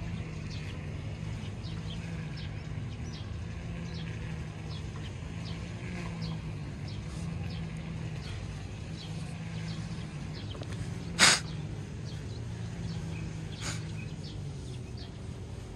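Outdoor ambience: a steady low hum with short, high bird chirps repeating throughout. A single sharp click about eleven seconds in is the loudest sound, with a fainter one a couple of seconds later.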